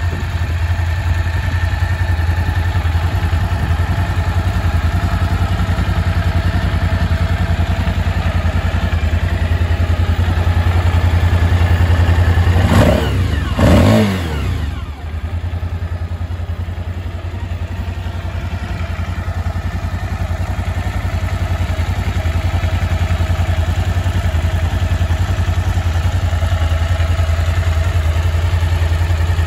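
A 2002 Suzuki DL1000 V-Strom's 996 cc V-twin idling steadily, with one quick rev about thirteen seconds in that falls back to idle.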